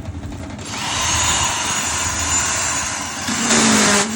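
Concrete vibrator machine running with a steady low hum. It grows louder, with a high whine, from about half a second in, and surges briefly near the end.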